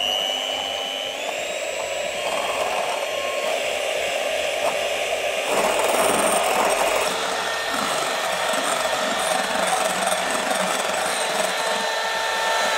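Cheap electric hand mixer running steadily with a high motor whine, its beaters whipping egg whites in a bowl. The pitch of the whine shifts about a second in and again about halfway through.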